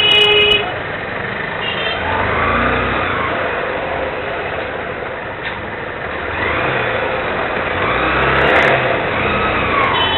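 Motor scooter traffic in a narrow market street: small engines run and rev as scooters pass by, several times over. A vehicle horn honks briefly right at the start.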